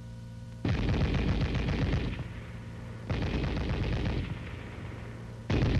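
7.62 mm M73 tank machine gun firing on full automatic in rapid bursts: two bursts of a second or so each, and a third starting near the end.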